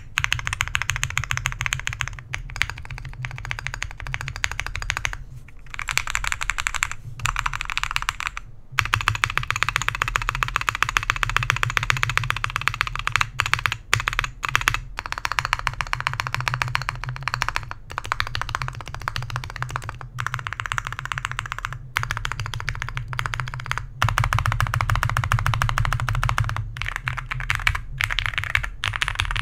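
Typing on a mechanical keyboard with lubed and filmed Alpaca linear switches on a POM plate, in a gasket-mounted tenkeyless case with PE and plate foam. Fast, continuous keystrokes with a few brief pauses.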